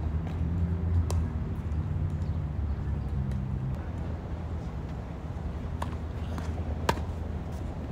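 Tennis ball and racket impacts heard across an outdoor court: a few sharp pops, the loudest about seven seconds in as a flat serve is struck. Underneath is a low steady rumble, with a vehicle engine humming through the first few seconds.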